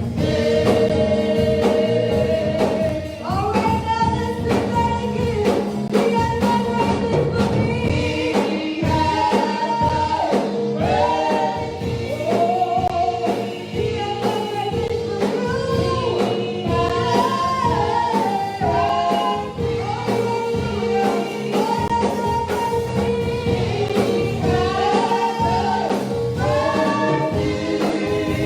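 Gospel song: voices singing a melody over a full instrumental backing.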